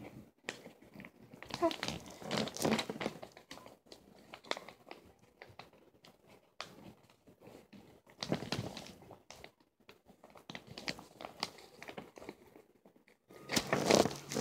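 Sheet of paper being handled and folded into a paper airplane: irregular crinkling and rustling in short bouts with light clicks, busiest near the end.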